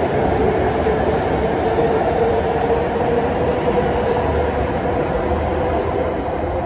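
E7 series Shinkansen train pulling out along the platform and gathering speed: continuous running noise with a steady whine, easing slightly near the end as the last car goes by.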